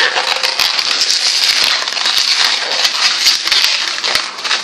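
A white latex twisting balloon being twisted into small bubbles and pinch twists, the rubber rubbing against itself and the hands in a dense rustle with many small sharp clicks.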